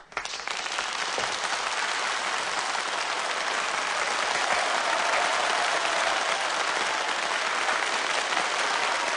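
Audience applauding, breaking out suddenly and holding steady as dense, even clapping.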